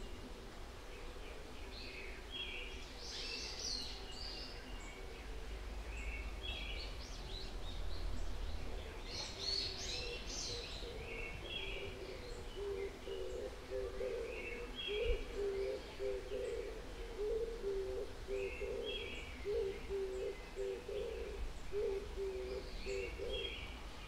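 Small songbirds chirping and calling in short high phrases, scattered throughout. Through the second half a low hooting call repeats about twice a second, over a low background rumble.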